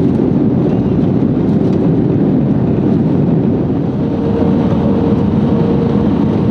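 Airliner cabin noise on approach: the steady, loud low rush of jet engines and airflow heard from a window seat over the wing. A faint steady hum joins in about four seconds in.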